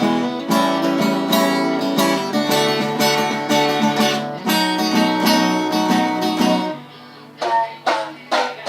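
Acoustic guitar playing a blues passage, strummed and picked chords ringing on; about seven seconds in it thins out to a few separate plucked notes.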